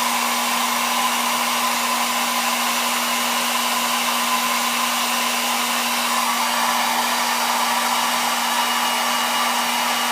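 Hot-air blower running steadily with a constant hum under the rush of air, heating the phone's glass to soften the adhesive so it separates from the screen.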